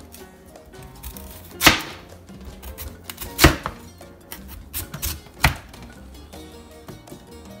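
Large kitchen knife chopping raw peeled beetroot on a cutting board: several separate sharp knocks of the blade hitting the board, a second or two apart, the loudest about one and a half and three and a half seconds in.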